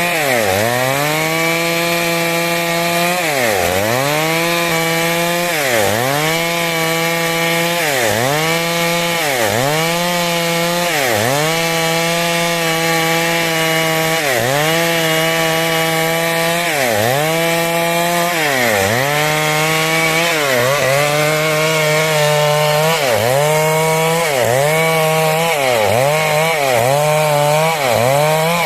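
Stihl MS 382 two-stroke chainsaw running at high revs while cutting wood. Its pitch dips sharply and recovers about every two seconds, and more often near the end.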